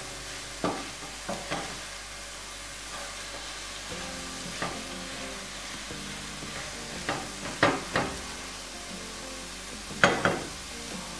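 Diced aubergine and onion sizzling in a nonstick frying pan, with a wooden spatula scraping and knocking against the pan in irregular strokes as the pieces are stirred; the loudest strokes come in a cluster near the end.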